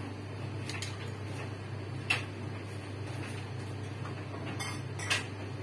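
A steady low hum with a few short, sharp clicks and taps, the loudest about two seconds in and two more close together near the end.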